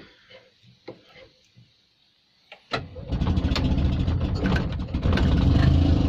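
Invacar Model 70's air-cooled Steyr-Puch flat-twin engine being started from cold: a few faint clicks, then a bit under halfway through it is cranked and fires, running louder and steadier near the end. It is a below-freezing start on thick 30-grade oil, which the owner thinks is making it reluctant.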